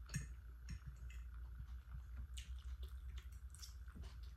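Close wet chewing and lip smacking of a person eating fried noodles with squid and octopus, in irregular short smacks. A steady low hum lies underneath.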